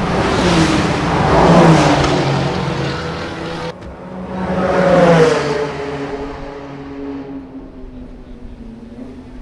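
Sports cars passing at speed on a race track, each engine note rising in loudness and then dropping in pitch as the car goes by. Two pass-bys, with an abrupt cut between them a little past halfway through the first half.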